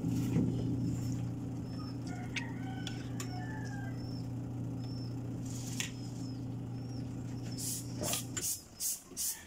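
A steady low hum that cuts off suddenly near the end, with birds chirping over it, repeated short high chirps and a few lower calls about two to three seconds in.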